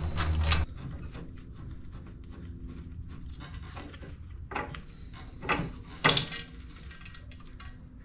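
A low hum cuts off under a second in. Then come scattered metal clinks and knocks as the last bolt comes out and the steel crash bar is worked off the Harley-Davidson Dyna's frame, the sharpest knocks about halfway through.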